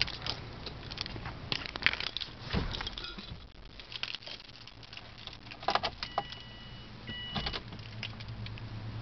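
Car keys jangling with scattered clicks and rattles as they are handled, over a steady low hum. Two short electronic chime tones sound about six and seven seconds in.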